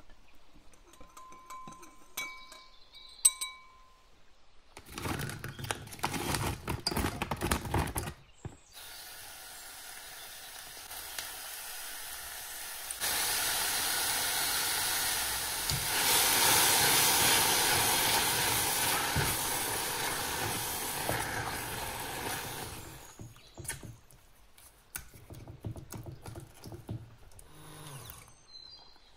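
Raspberries and sugar cooking in a stainless steel saucepan: a steady hiss of sizzling and steam that gets louder partway through and dies away near the end. There are quieter scraping and handling sounds before and after it.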